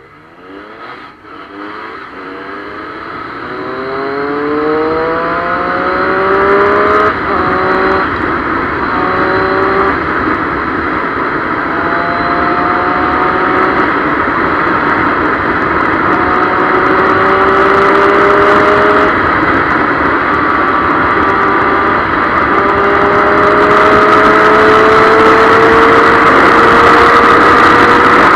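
Triumph Street Triple 765's inline three-cylinder engine accelerating hard through the gears, its pitch climbing and dropping back at each upshift as road speed rises from about 20 to over 170 km/h. Wind rushing over the microphone grows louder near the end at high speed.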